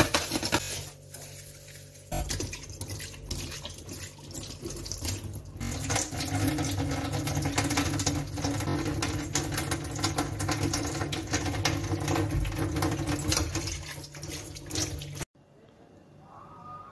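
Scrubbing and water splashing on a wet tiled kitchen countertop, a dense scratchy wash over a steady low hum. It stops abruptly near the end.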